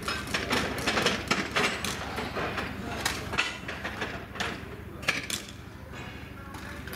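Irregular metallic clanks and knocks of a fairground ride being taken apart, over a steady low hum.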